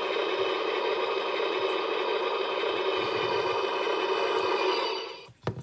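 DX Sound Attack Godzilla toy playing its electronic atomic-breath sound effect through its small built-in speaker, a steady, noisy blast that cuts off about five seconds in. A single sharp knock follows.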